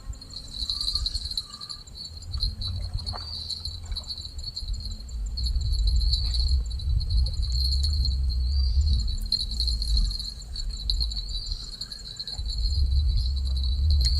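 Insects trilling steadily in a high, continuous buzz, over a low rumble that swells and fades.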